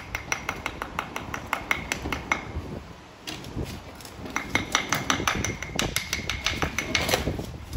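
Rapid metal-on-metal tapping and clinking, several sharp knocks a second, each with a short ring, as rusty finds from the magnet are knocked against one another. The knocking pauses briefly about three seconds in, then picks up again, denser.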